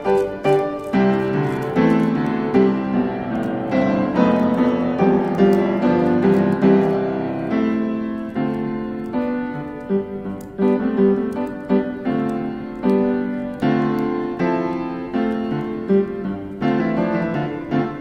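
Background piano music: a steady run of struck notes, each fading after it is played.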